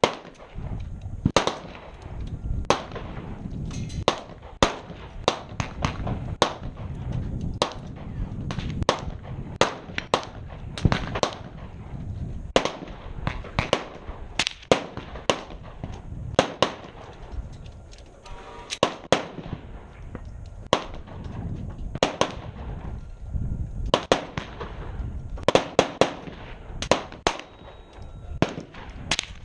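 Repeated gunshots at irregular intervals, several dozen in all, some in quick pairs and of varying loudness, over a low steady rumble.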